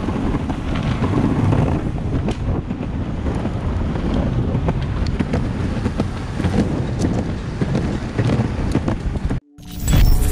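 Wind buffeting the microphone over the low rumble of an electric skateboard's wheels rolling on a concrete path. About nine seconds in, the sound cuts off abruptly and a short electronic intro sound with a burst and steady tones begins.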